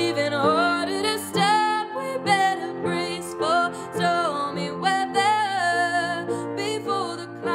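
A woman singing long, sliding melodic phrases over grand piano chords.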